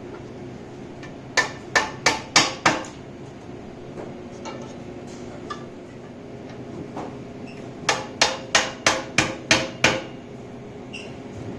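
Mallet blows seating EZTube framing tubes into their connectors: a quick run of about five strikes, then after a pause a second run of about eight strikes at roughly four a second.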